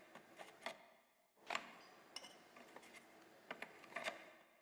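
Near silence with a few faint, irregular clicks from hands working a chainsaw's chain and bar after tensioning a new chain.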